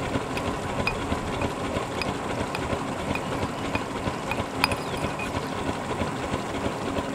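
A steady mechanical rumble with light clicks about twice a second and one sharper click about two-thirds of the way through.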